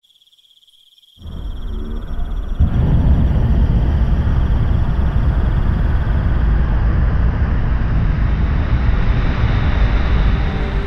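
Hot-air balloon propane burner firing: a loud, steady roar that starts about a second in and grows louder a second or so later.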